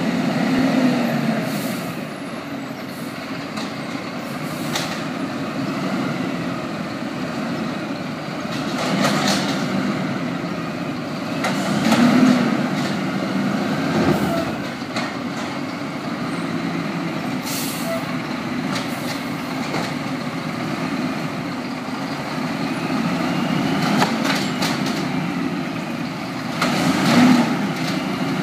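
Dual-fuel (LNG) automated side-loading garbage truck working its arm through bin pickups. The engine rises and settles with each lift cycle, under rising hydraulic whines, hisses of air and clunks as the arm grabs, lifts and dumps the wheelie bins.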